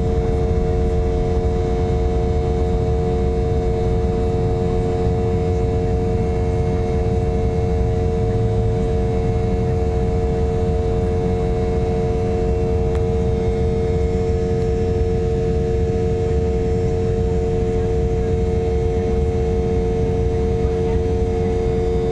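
Embraer 190 jet engines running steadily, heard inside the aircraft as a loud, deep rumble under a steady droning tone.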